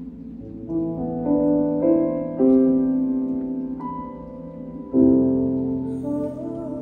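Piano playing a slow run of chords: new notes struck about every half second in the first few seconds, each ringing on and fading, then a louder chord about five seconds in.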